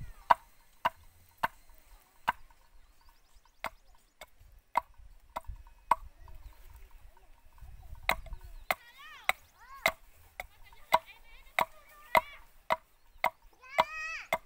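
An axe strikes wood in a steady series of short, sharp knocks, roughly one every half second to a second. Each knock has a brief ring.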